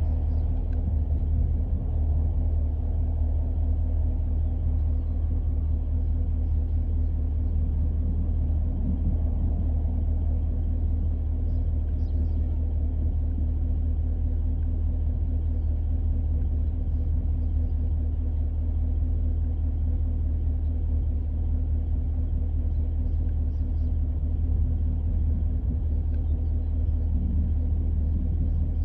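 Vehicle engine idling: a steady low rumble with a constant hum that does not change.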